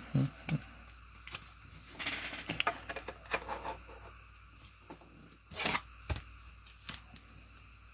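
Hands handling trading card packs and cards: scattered light clicks and taps, with rustling of packaging about two to four seconds in and again near six seconds.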